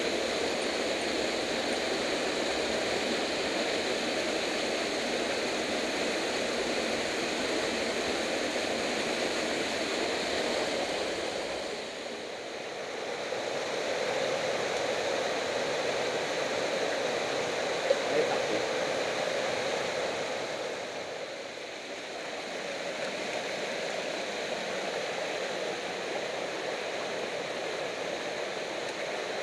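A mountain torrent and small waterfall pouring into a rock pool: a steady rush of water that dips in loudness twice. A brief click sounds about two-thirds of the way through.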